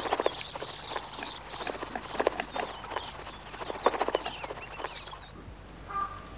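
A flock of quelea and doves chattering, with many short high chirps, wing flutters and quick taps, while a marabou stork lunges among them. Near the end a lower, steadier bird call starts.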